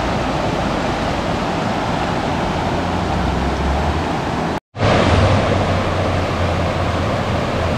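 Mountain river rapids rushing over rocks, a steady wash of white water. It cuts out for an instant a little past halfway, then carries on the same.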